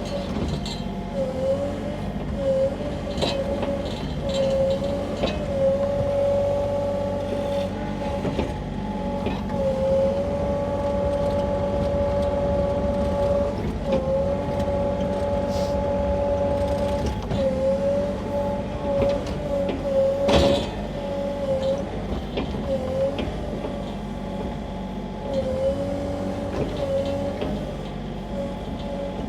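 Sany mini excavator running at raised throttle while it digs, its diesel engine humming under a steady hydraulic whine that briefly dips in pitch again and again. A single sharp knock about twenty seconds in.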